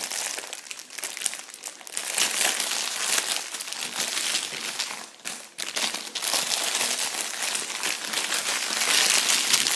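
Clear plastic candy wrapper crinkling as it is handled close to the microphone, with a short lull about five seconds in.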